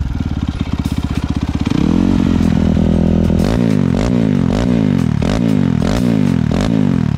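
Supermoto motorcycle engine running through a new aftermarket exhaust with a stainless silencer, carbon end cap and separate power-bomb chamber. It idles with distinct firing pulses, rises to a steady higher rev about two seconds in, then is blipped about five times in quick succession, each rev rising and falling.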